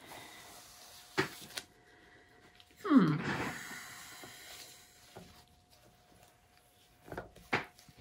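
A paint-covered canvas being handled and turned on a turntable: a few light knocks and clicks, and about three seconds in, a louder short scrape that falls in pitch.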